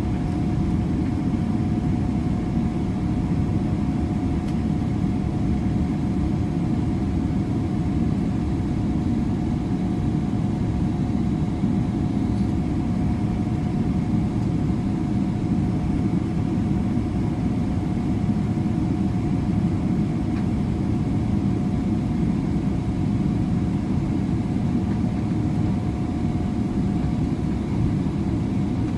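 Cabin noise of a Boeing 777-300ER taxiing with its GE90-115B engines at idle: a steady low rumble with a thin, even whine running through it.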